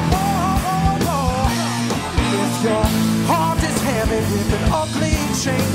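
Live blues-rock band playing: drum kit, electric bass and keyboard chords under a lead melody that bends and slides in pitch.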